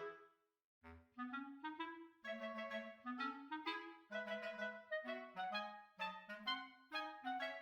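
Background music: a melody of short, quick notes, with a brief silent break just under a second in before it starts again.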